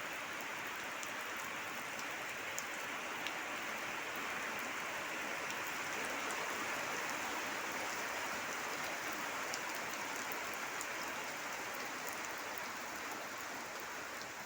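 Steady rainfall: an even hiss of rain with a few faint drop ticks.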